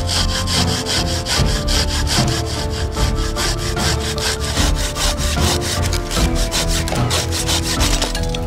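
Hand saw cutting through a dry wooden pole in quick, steady back-and-forth strokes.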